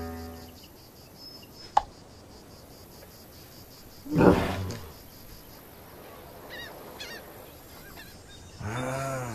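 Donkey braying once, loud and brief, about four seconds in; faint bird chirps follow a few seconds later.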